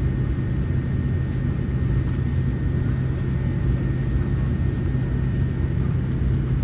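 Cabin noise of a Boeing 787-9 on the ground: a steady low drone under an even rush of air.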